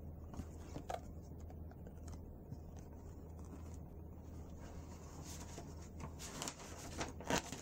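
Pages of a children's picture book being handled and turned: paper rustling and flapping in a few quick strokes that grow loudest near the end, over a low steady hum.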